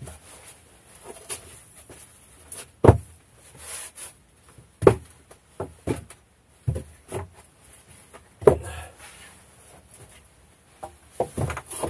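Irregular knocks and thuds of tools and boards being picked up, moved and set down on a plank floor, about nine in all at uneven intervals, a few of them sharper and louder.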